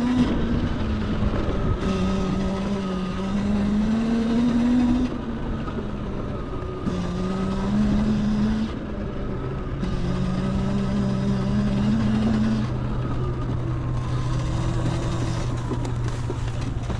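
Electric motorcycle's motor whining on the move, its pitch rising slightly through several stretches of throttle and dropping away as it eases off, over a steady rush of wind and road noise.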